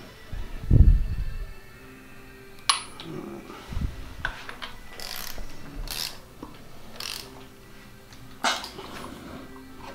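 Metal hand tools clinking and knocking against engine parts, with a dull low thump about a second in and a series of sharp clinks and clicks after it.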